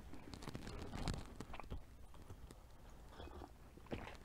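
Close-miked chewing of crisp homemade pizza crust: faint, irregular crunches and mouth clicks, one a little louder about a second in.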